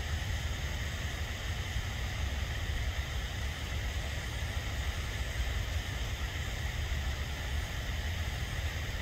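Steady rushing noise with a low, fluttering rumble underneath, unbroken throughout.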